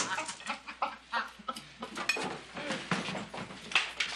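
Several men laughing in short, irregular bursts.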